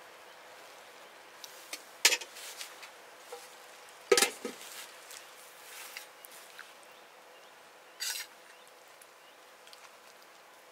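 Metal cookware being handled: a ladle, a cooking pot and its lid clinking and clanking a few times, the loudest a ringing clank about four seconds in.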